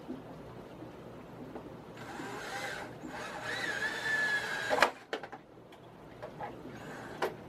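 Cordless drill driving a wood screw into pine framing: the motor whines for about three seconds, with one brief break, then stops with a sharp click.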